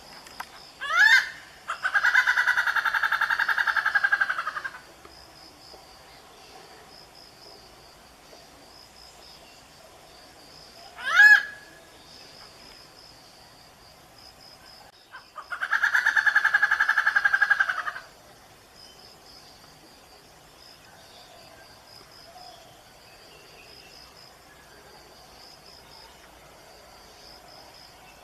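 Malabar grey hornbill calling: three short, sharp upward-sweeping squeals, near the start, about eleven seconds in and at the very end. Twice, it gives a longer, rapid rattling call lasting about two and a half seconds. A faint high pulsing note runs underneath throughout.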